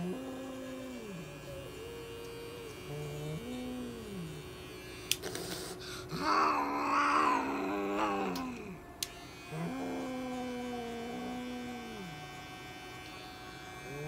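Domestic cat yowling in a series of long, low, drawn-out moans, each a second or two, while held down on an exam table; the call about six seconds in is the loudest and highest. These are a restrained cat's protest growls. A faint steady hum lies underneath for the first half.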